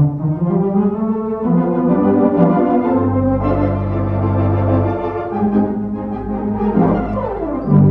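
Organ music from a silent-film soundtrack: a melody moving over held low notes, with a quick downward slide near the end.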